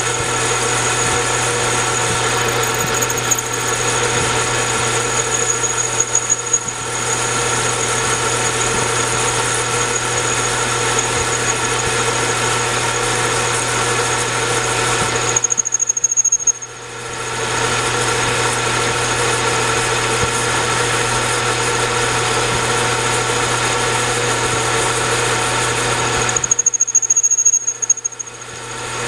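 Metal lathe running while a hand-fed parting tool cuts into a spinning bushing: a steady machine hum under the noise of the cut, with a thin high squeal from the tool, strongest early on and just before each pause. The cutting noise drops out briefly about halfway through and again near the end, leaving the hum.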